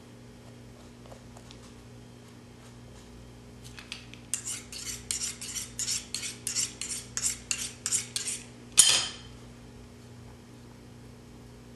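A metal tool worked against the skin of a mule deer cape: a quick run of short, sharp scraping strokes, about four a second, ending in one louder, longer stroke.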